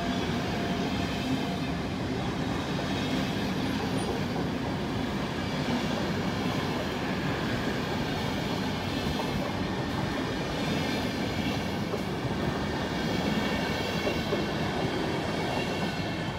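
PKP Intercity passenger coaches rolling past close by: a steady rumble of wheels on the rails that begins to fade near the end as the last coaches go by.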